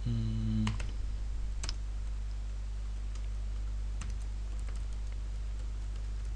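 Computer keyboard typing: scattered, irregular key clicks as code is entered. There is a brief hummed voice sound at the very start, all over a steady low electrical hum.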